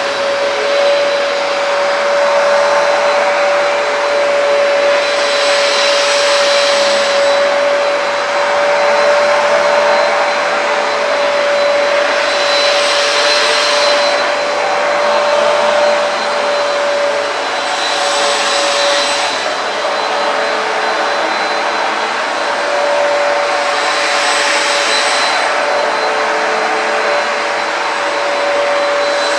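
Hoover PowerDash Advanced carpet cleaner running on a rug, its suction motor giving a steady whine over a loud rushing hiss. A hissier surge comes and goes about every six seconds. The rug has a tight backing that the owner says restricts airflow and water pickup.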